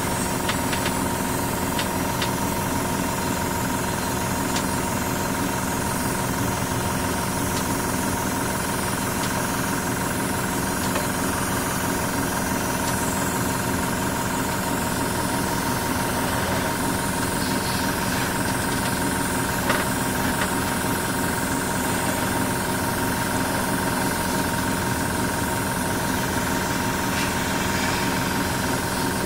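Airbrush compressor running, a steady mechanical hum that is a bit noisy.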